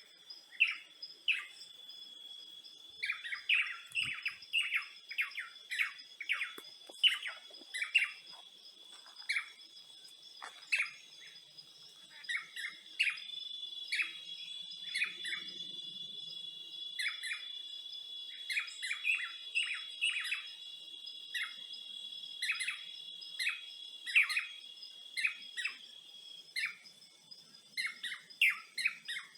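Forest ambience: birds chirping over and over in short, quick calls, over a steady high-pitched insect drone that thickens through the middle.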